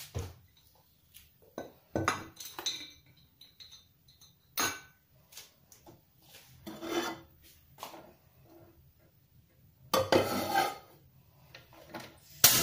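Kitchen handling noises: a nonstick frying pan and utensils knocked and slid about on a portable gas stove, in a few separate clatters and a longer scrape about ten seconds in. A sharp, loud click near the end as the stove's knob is turned to light the burner.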